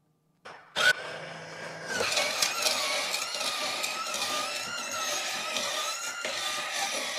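Wanvoapls shaved ice machine starting with a click about a second in. From about two seconds in, its stainless steel blade shaves a block of ice in a steady grinding crunch over a wavering motor tone.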